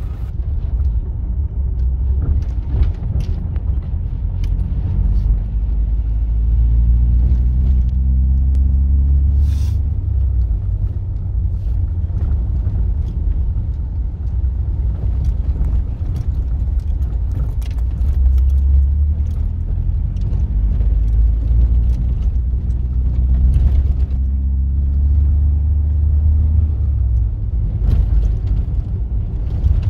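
Ford Ranger's 3.0 Power Stroke four-cylinder diesel pulling the pickup along, heard from inside the cab with a heavy low rumble of engine and road. The engine pitch climbs as it accelerates twice, about a couple of seconds in and again past the middle.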